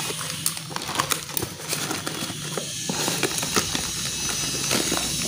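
Thin plastic shipping bag crinkling and rustling while scissors cut through it, with many irregular sharp clicks and crackles.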